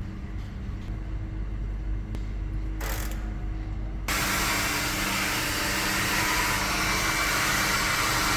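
Compressed-air blow gun: a short blast about three seconds in, then a loud steady hiss that starts abruptly about a second later and holds. A low steady workshop hum runs underneath.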